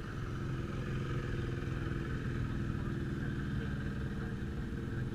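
A motorcycle engine idling steadily.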